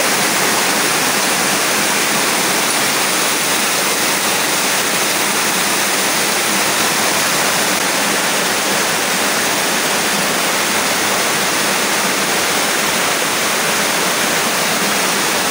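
Heavy rain with runoff water pouring down from rooftops and rushing through a narrow passage: a loud, steady rush of water.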